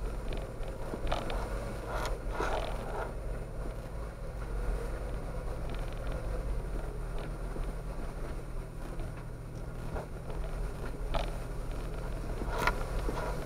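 Jeep driving slowly over a rocky gravel trail: a steady low hum of engine and drivetrain, with tyres crunching over stones and a few sharp clicks and knocks about two seconds in and again near the end.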